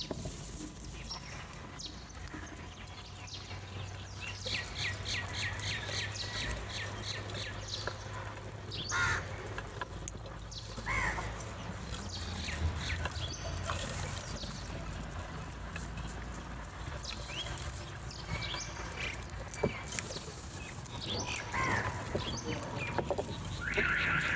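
A flock of house crows calling while feeding. About five seconds in comes a quick run of a dozen short, high calls, followed by scattered caws and a louder caw near the end.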